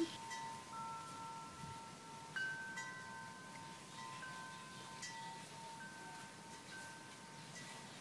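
Wind chimes ringing faintly: several clear high notes sound at different moments and ring on, overlapping one another.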